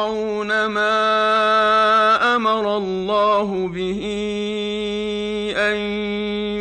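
A man reciting the Quran in melodic tajweed style, holding long drawn-out notes, with brief breaks between phrases about two seconds in and again near the end.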